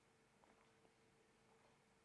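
Near silence: faint room tone with a steady low hum and a couple of faint clicks about half a second in.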